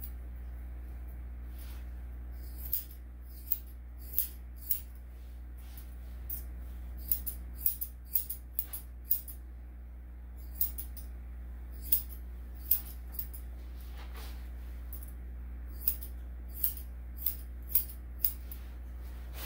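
Grooming scissors snipping through a dog's coat: about twenty crisp snips at an irregular pace, some in quick runs of two or three.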